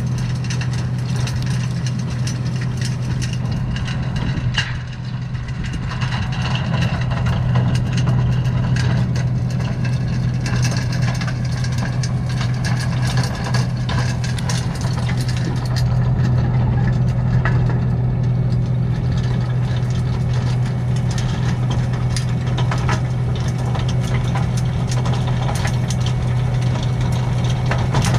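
Skid steer engine running steadily, driving a 72-inch hydraulic rotary tiller through hard-packed garden soil, with scattered short knocks and clatters throughout.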